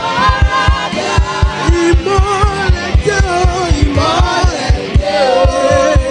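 Live gospel worship music: singing over a fast drum beat with frequent bass-drum hits.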